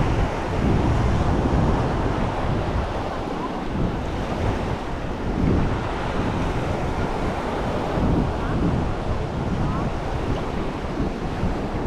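Surf washing onto a sandy shore, mixed with wind buffeting the microphone in irregular low gusts.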